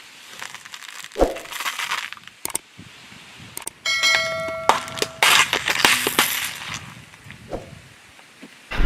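Objects being crushed: scattered sharp crackles and snaps, thickening for a couple of seconds from about four seconds in, with a brief bell-like ringing tone at the same time.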